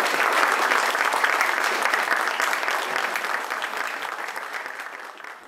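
Audience applauding, a dense clapping that fades away toward the end.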